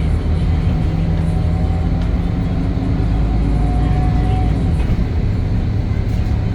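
Temsa Avenue LF 12 city bus under way, its DAF diesel engine and running gear giving a steady low drone, with a faint thin whine rising for about a second midway through.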